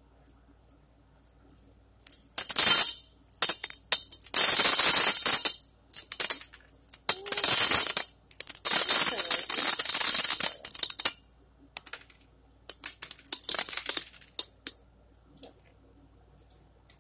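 Small rocks poured into a glass jar, rattling against the glass and each other in several pours of a second to three seconds with short pauses, then a few shorter trickles near the end.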